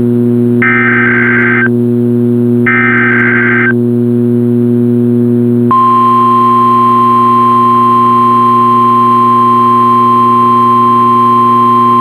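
NOAA Weather Radio test signal. The last two of three SAME digital header bursts sound, each a buzzy data burst about a second long and a second apart. About two seconds later the steady 1050 Hz warning alarm tone starts and holds. A low electrical hum runs underneath throughout.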